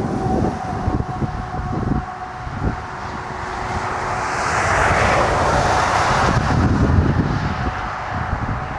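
Twin-engine jet airliner on its landing rollout. The engine roar swells about halfway through and then eases, over gusty wind buffeting the microphone.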